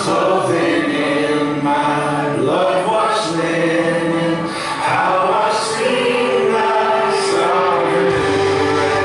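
A church congregation singing a hymn together in held, sustained notes that step from pitch to pitch.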